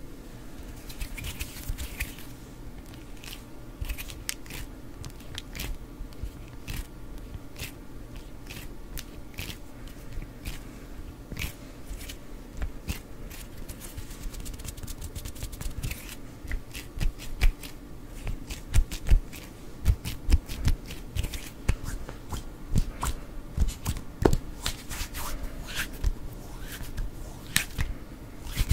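Close-miked ASMR hand sounds: fingers plucking and flicking near the microphone, making many irregular light clicks and soft taps that grow louder and busier in the second half. Near the end the palms rub together.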